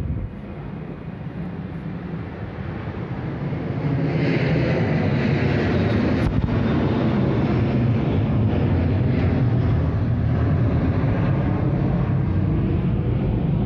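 Airplane flying overhead: a steady rumbling engine noise that grows louder about three to four seconds in and stays loud.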